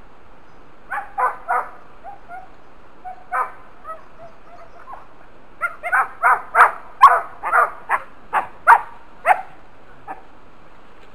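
A dog barking: a few scattered barks, then a quick run of about a dozen barks starting a little past halfway.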